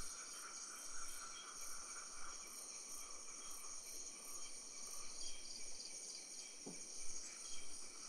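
Night insect chorus: crickets and other insects trilling steadily at several pitches at once, with a high pulsing call repeating about twice a second through the first half. A single brief low chirp sounds about seven seconds in.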